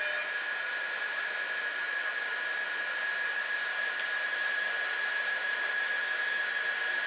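Siemens ES 64 F4 electric locomotive rolling slowly, its cooling blowers running with a steady hiss and a high, steady whine.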